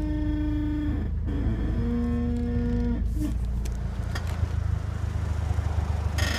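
A Mitsubishi Eclipse creaking as the car turns: long, moo-like groans, one held to about a second in, another from about two to three seconds, and a short one just after. A low engine rumble runs underneath.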